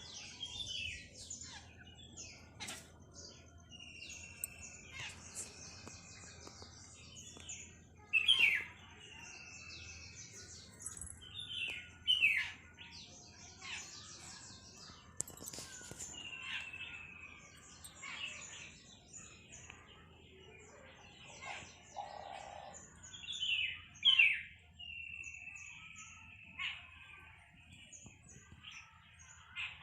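Several songbirds chirping and calling; one keeps repeating a sharp note run into a short level whistle, with a few louder calls standing out among the rest.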